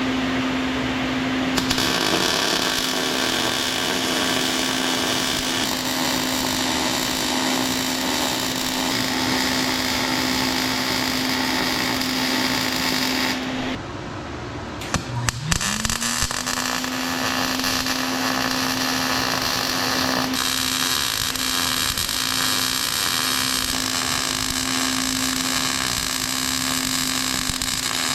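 Electric arc welding on sheet steel: a steady crackling hiss over a constant hum, in two long runs. About halfway through the arc stops briefly with a few clicks, then the hum rises back up and the welding resumes.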